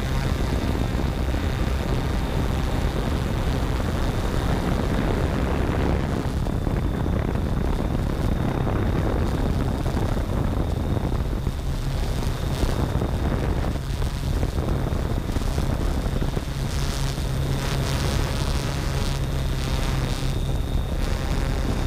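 Yuneec Typhoon G quadcopter's electric motors and propellers running in flight, a steady purr heard close up from the camera on board, its tone shifting slightly as the drone manoeuvres.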